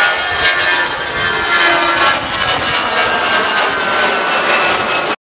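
Turbofan engines of an Airbus A320-family airliner passing low overhead: a loud rushing noise with several whining tones that slowly fall in pitch. The sound cuts off suddenly near the end.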